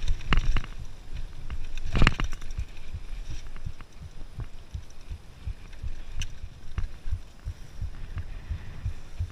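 Mountain bike rolling over a dirt trail, heard through a handlebar-mounted camera: a low rumble of constant bumps and rattles from the bike, with one hard jolt about two seconds in.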